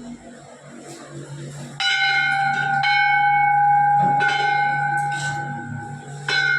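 Temple bell rung by hand, first struck about two seconds in and then struck again three more times, each strike leaving a long, clear ringing tone.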